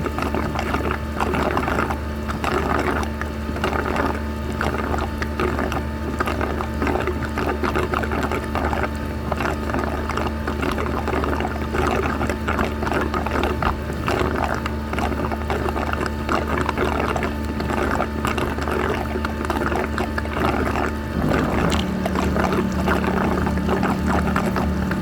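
A steady machine hum under continuous splashing and sloshing water; the hum's pitch drops slightly about 21 seconds in.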